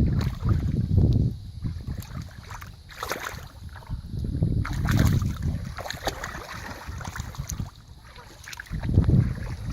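Water sloshing and splashing in irregular swells, with low rumbling buffets and a few faint clicks, as when wading and grabbing in shallow water.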